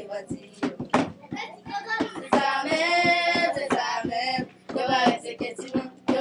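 A group of children singing together in unison, clapping their hands along with the song. Sharp hand claps cut through the singing, with one longer held sung note around the middle.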